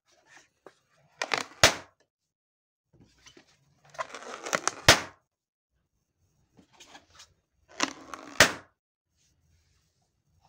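Latex balloons being handled: three bouts of rubbery rubbing and squeaking, each ending in a loud sharp snap.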